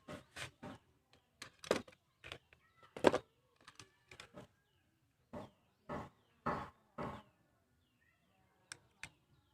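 A series of irregular knocks and taps, about a dozen spread over several seconds, with two sharp clicks near the end.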